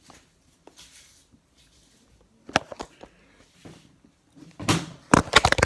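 Handling noises: scattered light clicks and knocks, then a quick run of clattering clicks near the end.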